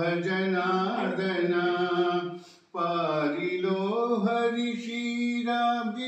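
A man's voice chanting verses in long held, sing-song notes, with a short break about two and a half seconds in.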